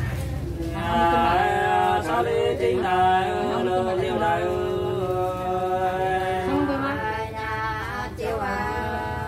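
Hát sli, the Nùng folk song of northern Vietnam, sung unaccompanied. The voices begin under a second in and draw out long held notes that glide slowly in pitch.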